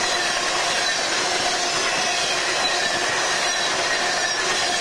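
Steel wheels of passing coal gondolas rolling over the rails: a steady rolling noise with faint, steady ringing notes and no distinct clickety-clack.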